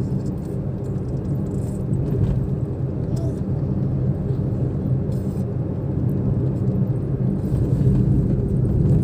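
Suzuki car driving, heard from inside the cabin: a steady low hum of engine and road noise.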